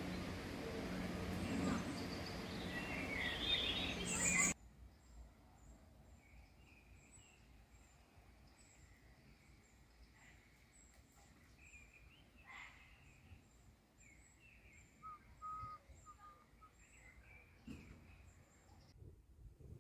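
Songbirds chirping and singing, faint and repeated, in a quiet outdoor background. For the first four and a half seconds a louder steady low hum and rushing noise covers them, then cuts off abruptly.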